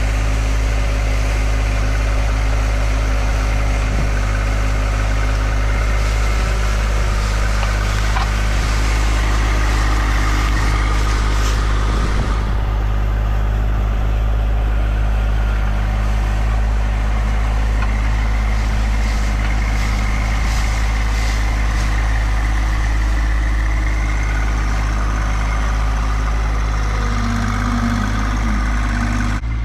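John Deere 2025R compact tractor's three-cylinder diesel engine running steadily as it drives forward pushing leaves with a front loader rake. The sound turns duller about twelve seconds in.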